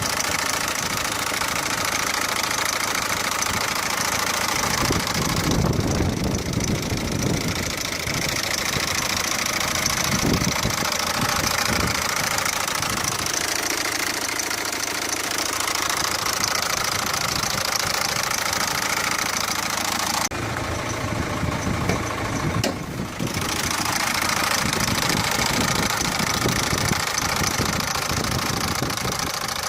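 Peugeot 407's 1.6 HDi diesel engine running steadily, with the unexplained engine noise its owner sent in to have traced. The high part of the sound thins out briefly about twenty seconds in.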